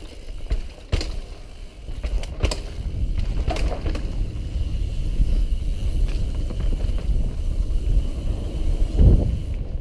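Mountain bike ridden fast down a dirt forest singletrack: a steady low rumble from the ride, broken by sharp clicks and rattles from the bike, and a heavier thump near the end.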